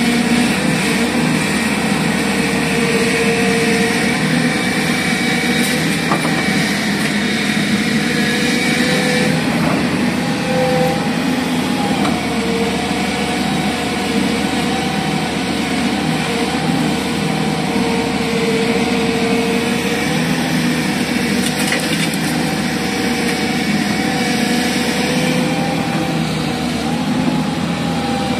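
Hyundai Robex wheeled excavator's diesel engine running steadily under working load while the boom and bucket dig and lift earth, its pitch wavering slightly as the hydraulics take up the load.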